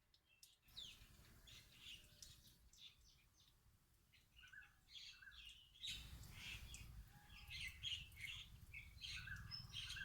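Faint birds chirping, many short calls, over a low background rumble that comes up about six seconds in.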